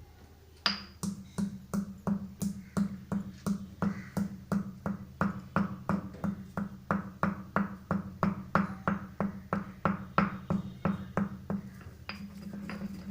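Black peppercorns being pounded to powder with a pestle in a mortar: a steady run of sharp knocks, about three a second, stopping near the end.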